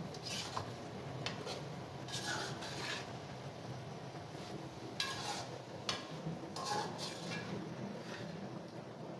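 A spoon stirring and scraping in a cooking pan, with irregular clinks and longer scrapes of metal on metal.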